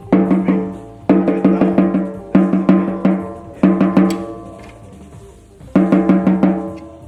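A Sonor drum struck in five quick runs of taps, each run ringing at a steady pitch and fading before the next. It is being rough-tuned at the factory.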